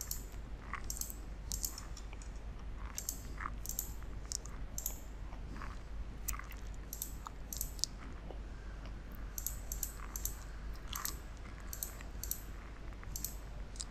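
Computer mouse clicking at irregular intervals, placing points one after another, some clicks coming in quick pairs, over a faint steady low hum.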